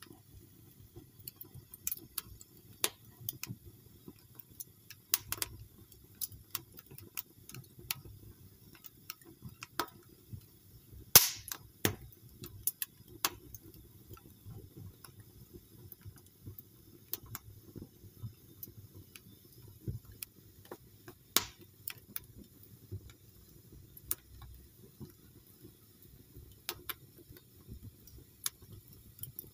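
Wood logs burning in a fireplace, crackling with irregular sharp pops. One pop stands out as the loudest about a third of the way through, and another strong one comes about two-thirds through, over a faint low rumble.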